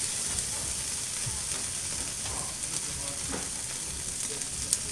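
Fat cap of a whole roast beef sizzling on the hot grate of a Napoleon grill's infrared side burner: a steady hiss with scattered crackles and one sharp pop near the end, as rendered fat drips down into the burner.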